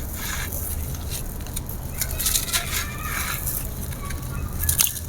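Dry grey concrete from a thin slab being crumbled: repeated gritty crunches and crackles in short bursts, the sharpest a little before the end.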